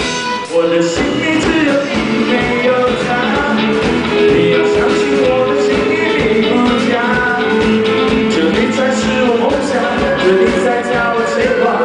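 A live rock band playing a song with a steady drum beat, a singer's voice on top.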